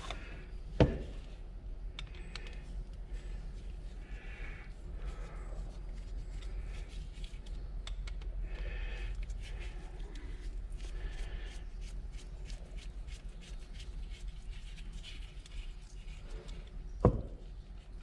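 Small-engine carburetor parts and hand tools being handled at a workbench: faint clicks, ticks and scraping, with two sharp knocks, about a second in and near the end.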